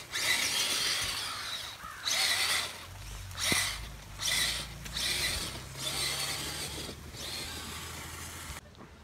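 Electric motor and gears of a small RC crawler truck whirring as it climbs a dirt trail. Bursts of leaves and brush rustle against the camera, and the sound drops away near the end.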